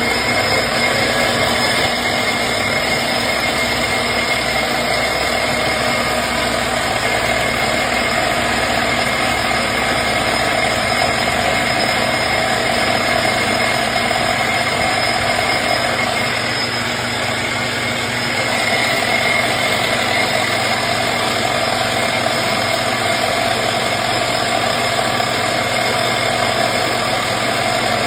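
Metal lathe running steadily while turning down brass stock: a constant motor whine and machine hum, easing slightly for a couple of seconds about two-thirds of the way through.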